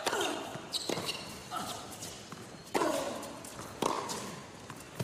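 Tennis rally: a serve, then the ball struck back and forth off the rackets, sharp hits coming about once a second. Some shots carry a player's short grunt.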